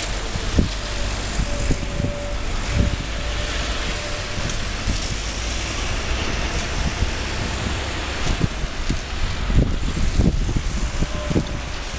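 Caterpillar 385C hydraulic excavator working: a steady diesel engine rumble, with a faint on-and-off whine and scattered short knocks.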